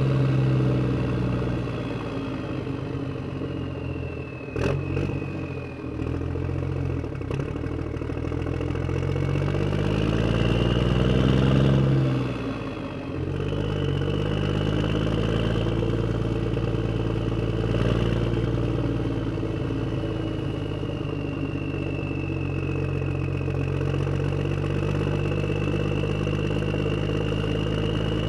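Vehicle engine running while driving. Its pitch sinks at first, with a few sharp clicks about five seconds in. It then climbs in revs, drops suddenly about twelve seconds in, and runs steadily after that.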